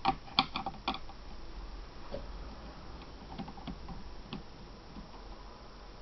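Small hand-tool clicks: a thin screwdriver and small screws ticking and tapping against the plastic chassis of an Acer Aspire One netbook as screws are taken out. A quick run of sharp clicks in the first second, then a few scattered light ticks.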